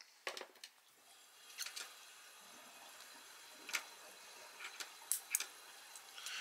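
Quiet scattered clicks and small scrapes of needle-nose pliers gripping and prying at the brass and plastic parts of a small fridge thermostat switch.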